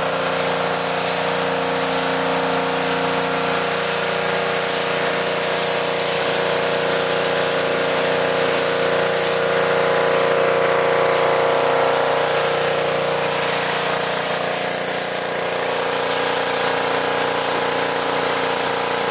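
A 3,100 PSI pressure washer running steadily, its engine's drone under the hiss of the high-pressure water jet blasting dirt off a car's paint.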